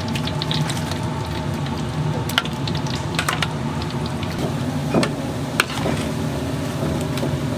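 Snack-shop kitchen at work: a steady low machine hum with scattered clinks and taps of utensils, a few sharp ones near the middle.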